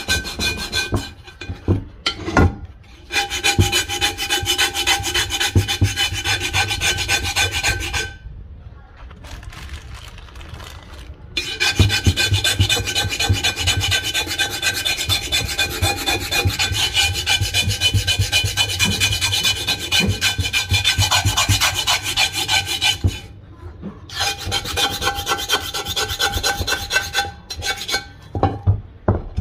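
Old cast iron pot being scraped with a metal blade, a rapid rough rasping with steady ringing tones running through it. The scraping stops for a few seconds about eight seconds in, and again briefly later, then starts again.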